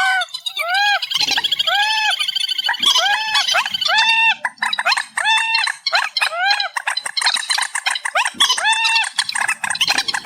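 Amplified recording of trích ré birds calling: a run of repeated arched notes, each rising and falling, about two a second. From about five seconds in, more birds overlap in a quicker, denser chorus.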